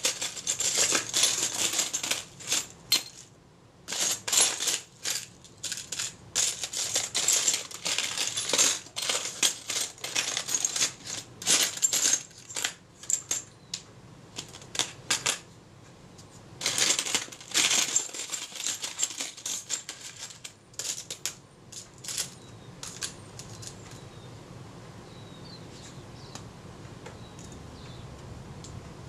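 Small metal camera parts and screws rattling and clinking in clear plastic parts trays as they are sorted through. It comes in long runs of quick clicks, then thins to occasional clicks in the last third.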